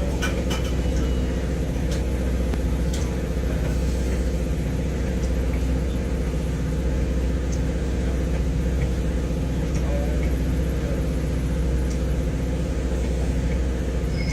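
Amtrak diesel locomotive engine running steadily: a low, even drone with no change in pitch or loudness, and a few faint clicks.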